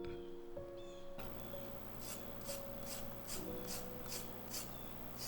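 Round squash pushed over a julienne slicer: repeated rasping strokes, about two a second, starting about a second in, over soft background music.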